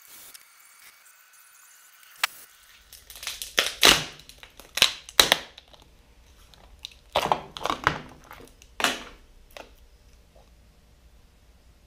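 Blue tape being peeled and ripped off a cured epoxy casting, heard as crackling tearing noises in two bursts of a few seconds each, after a single sharp click.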